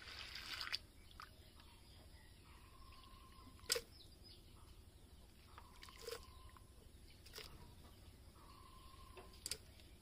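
Hands sloshing dried corn kernels in a steel bucket of water to soak them: a short rush of grain and water in the first second, then faint splashing and a few sharp knocks.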